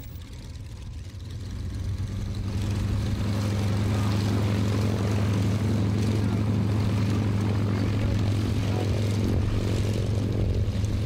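Aerobatic propeller plane's piston engine running steadily at low power as it taxis by close after landing: a low, even drone that grows louder over the first few seconds and then holds.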